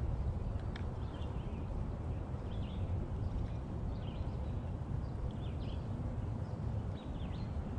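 Steady wind rumble on the microphone, with birds chirping intermittently in the background.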